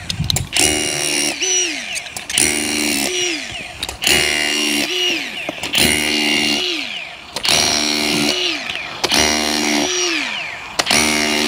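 Hand-held armoured-cable cutter working through the steel wire armour of a 6mm SWA cable, slightly neater than a hacksaw: about seven rasping strokes, each held steady then dropping in pitch as it ends, roughly one every one and a half seconds.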